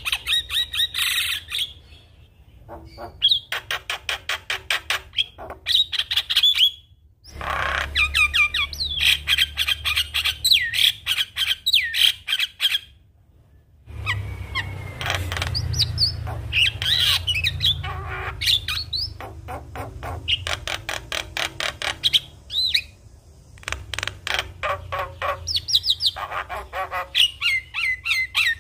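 Javan myna (jalak kebo) singing at full tilt: fast runs of harsh, rapid clicking chatter mixed with whistled and squawking notes. The song breaks off twice for a moment.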